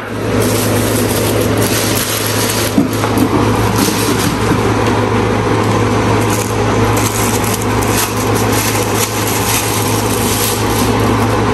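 Packaging being unwrapped from new blender parts: continuous crinkling and rustling with many small crackles, stopping near the end.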